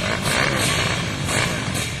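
Quad bike engine revving, the throttle blipped so the note surges up and down several times.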